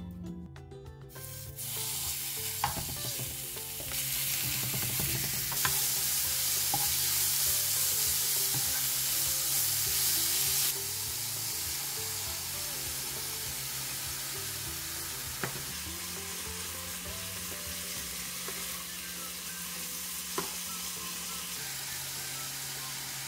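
Thinly sliced beef brisket sizzling as it fries in a pan, louder for several seconds early in the cooking and then steadier, with a few sharp clicks. Soft background music plays underneath.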